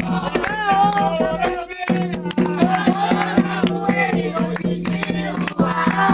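Umbanda ritual singing (a ponto for Xangô) with voices over quick, steady percussion strokes, about four to five a second, which briefly thin out about two seconds in.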